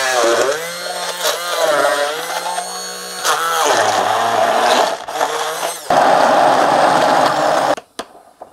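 Hand-held immersion blender pureeing chopped tomatoes in a glass measuring cup; the motor's whine rises and falls as the blades catch and clear the pieces, runs steadier for a couple of seconds, then stops near the end, followed by a few light taps.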